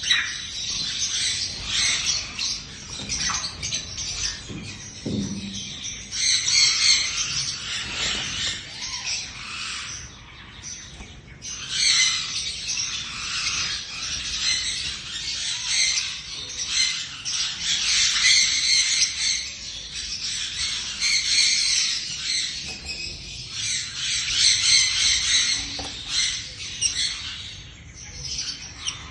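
Lovebird chirping and squawking in a continuous shrill chatter, with a brief lull about ten seconds in.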